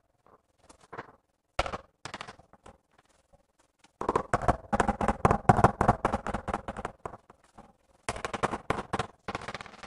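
Rapid taps of a mallet on a large ceramic wall tile, seating it into the adhesive. A few single knocks, then quick runs of strikes, the longest about three seconds near the middle and shorter ones near the end.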